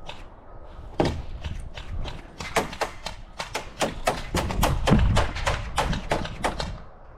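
Airsoft guns firing in an irregular string of sharp cracks, a few a second, growing dense from about two and a half seconds in, with low thuds underneath.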